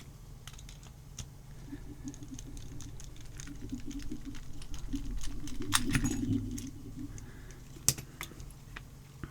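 Small metal clicks and rattles of an ABUS 83AL-45 padlock being handled and taken apart after picking, with a low rubbing noise from about two to seven seconds in and sharper clicks about six and eight seconds in.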